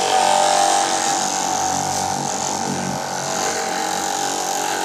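Handheld electric orbital polisher running steadily while buffing car paintwork, a constant motor whine.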